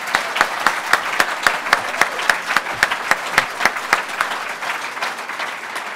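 A seated audience applauding: dense clapping with sharp individual claps standing out. It begins to fade near the end.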